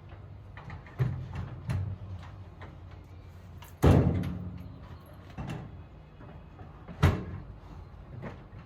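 Metal toolbox being worked into a cut-out in a school bus's sheet-metal side: a few hollow metal knocks and bangs, the loudest about four seconds in, ringing as it fades.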